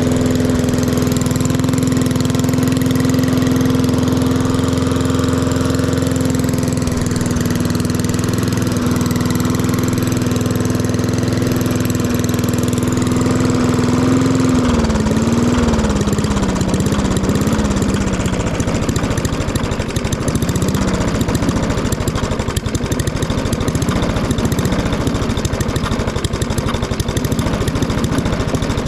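Lawn mower engine running steadily through an aftermarket straight-through muffler. About halfway through, its pitch drops and wavers, and the exhaust note turns rougher.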